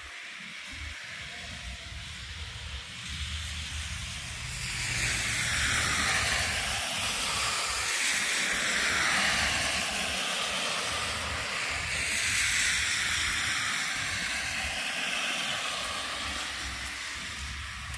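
Vehicles passing on a snowy street, their tyre hiss swelling and fading twice as they go by, over a low steady traffic rumble.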